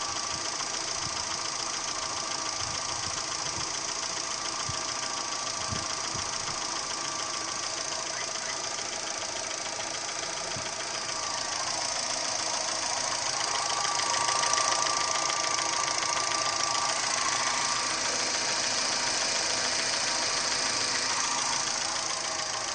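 Gentra's petrol engine running with a fast, steady knocking tick. The engine gets louder about halfway through and stays there.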